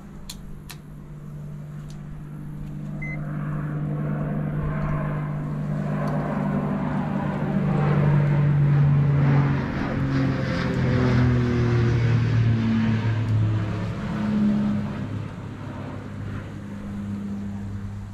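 A motor vehicle going past: its engine hum builds over about eight seconds, then drops in pitch and fades. A couple of light clicks right at the start.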